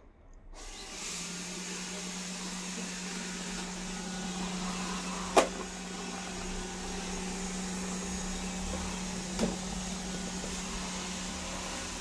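Xiaomi Mop 1C robot vacuum running as it drives across the floor: its suction fan and motors start up about half a second in, then give a steady low hum under a hiss. A sharp knock sounds about five and a half seconds in, and a fainter one near nine and a half seconds.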